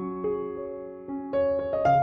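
Slow background piano music, single notes following one another.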